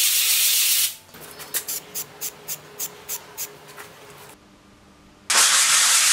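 Aerosol spray-paint can: a steady hiss of spraying, then the can's mixing ball rattling in quick regular clicks, about three to four a second, as it is shaken, then a second steady spray hiss starting near the end.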